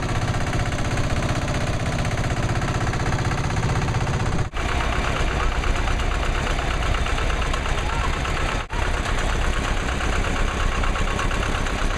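Tractor engines running steadily as tractors pass close by, the sound cutting out for a moment twice, about four and a half and eight and a half seconds in; after the first break the engine note is deeper with a fast, even pulse.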